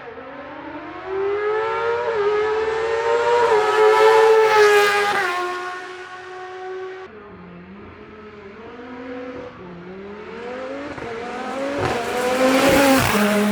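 Hillclimb race car engines revving and accelerating away from the start, the pitch climbing and dropping back at gear changes. A second car follows after a sudden change about seven seconds in and is loudest near the end.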